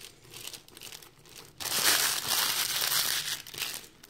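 Plastic piping bag crinkling as it is handled, with a louder stretch of crinkling from about one and a half seconds in that lasts roughly two seconds.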